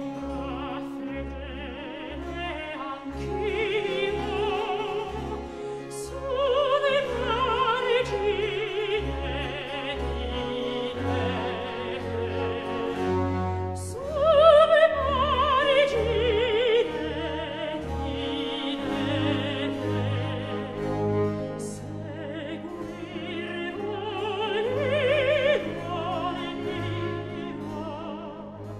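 Classical vocal music: a singer with wide vibrato over orchestral accompaniment, with a repeated low note pulsing under the first half.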